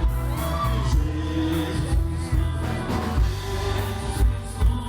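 Christian pop song played by a band with bass and drums, a man singing the word "Jesus" in a long held note over it.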